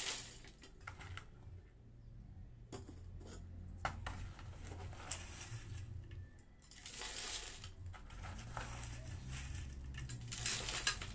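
Handfuls of dry cement mix and gravel being scooped from a metal bowl and dropped into a tin can, a gritty rattle and patter that comes several times, loudest near the end. A steady low hum runs underneath.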